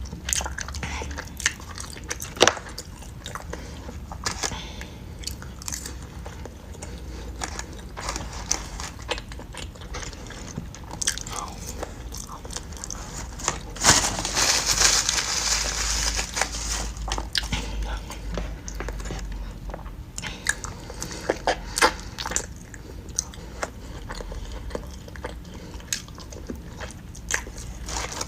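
Close-up mukbang eating sounds: a person biting, chewing and sucking braised oxtail meat off the bone, with many small wet mouth clicks and smacks. About halfway through comes a louder, noisier stretch of a few seconds.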